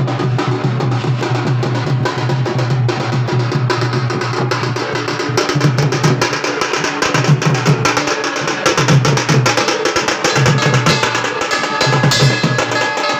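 Hand drums beaten in a fast, dense rhythm.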